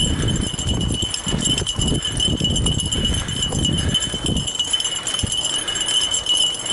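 Fat bike rolling on a dirt single-track trail behind a team of harnessed dogs: a rumble of tyres and wind on the helmet camera that eases off about four and a half seconds in. Light jingling runs through it, with a steady high-pitched tone behind.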